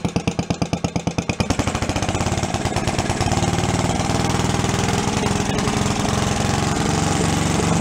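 Small air-cooled single-cylinder "thumper" engine, its carburettor freshly adjusted after revival. It idles with slow, distinct firing beats, then is revved up about a second and a half in and held at the higher speed.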